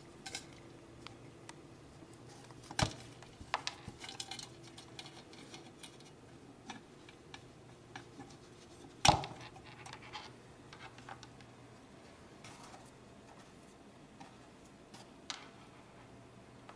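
Hands working on a loudspeaker woofer: scattered scratching and small clicks, with two sharp knocks about three seconds in and about nine seconds in, over a faint steady hum.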